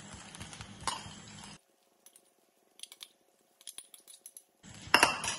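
A metal slotted spoon clinking and scraping against a bowl and an aluminium pressure pan while fried coconut bits and shallots are spooned onto the batter. The clinks come as scattered light clicks, and the loudest come near the end.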